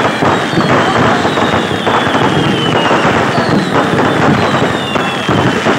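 Kerala vedikettu fireworks going off in a dense, unbroken barrage of overlapping bangs and crackling, with thin high whistles gliding down in pitch now and then.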